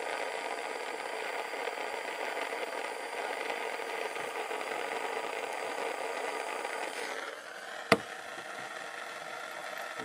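Gas torch flame running steadily against a small crucible of solder, heating it to melt. About seven seconds in the flame stops and the level drops, and a single sharp knock follows about a second later.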